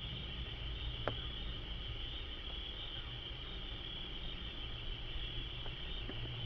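A steady, high-pitched chorus of insects chirring, over a low rumble, with one sharp click about a second in.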